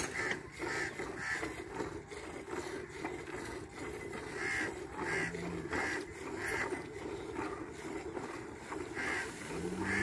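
A cow being hand-milked: streams of milk squirt into a steel pail in a rapid, uneven rhythm, one squirt about every half-second.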